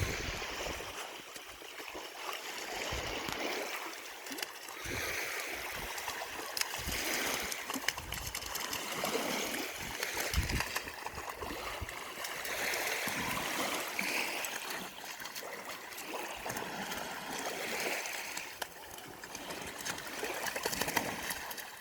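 Running water with a rippling rush and occasional splashes, with a few brief low knocks here and there.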